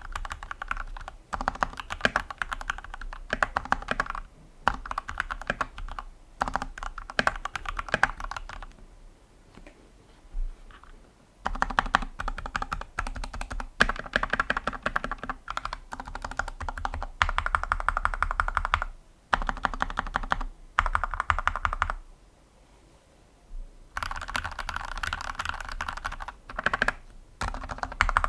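Typing on a GK61 custom mechanical keyboard with lubed Gateron Yellow linear switches, PBT keycaps and neoprene dampening, in fast runs of keystrokes broken by short pauses, the longest about ten seconds in and again about twenty-two seconds in.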